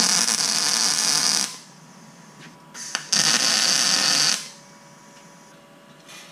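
MIG welder arc laying two short welds on steel, each running about a second and a half, the second starting about three seconds after the first.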